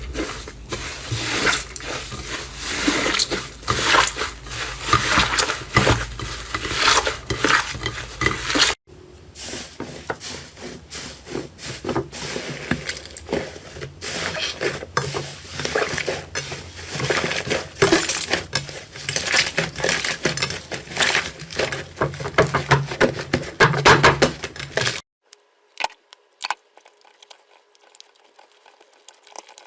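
Slime being squished and pressed by hand, making a dense run of crackling, clicking pops. The sound changes abruptly about nine seconds in, and near the end it drops to a few faint clicks.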